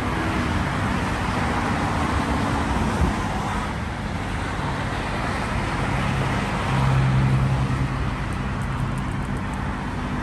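Steady road traffic noise from the city below, with a deeper engine hum swelling for a couple of seconds after the middle as a heavier vehicle passes.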